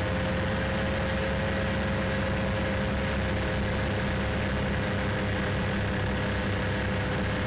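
Yamaha VK Professional II snowmobile's four-stroke engine running at a steady speed under way, heard from on board the machine, with a steady whine over the engine's low drone.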